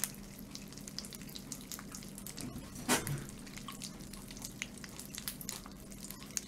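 Carbonated popping candy sprinkled on fried chicken, popping in many small scattered clicks like fat spattering in a pan, with one louder crack about three seconds in.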